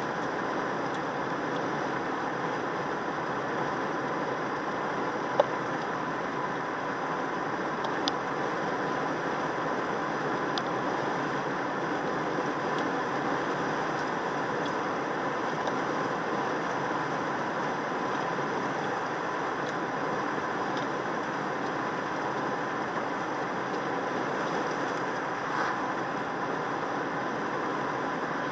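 Steady road and tyre noise with engine hum inside a moving car's cabin, with two sharp ticks about five and eight seconds in.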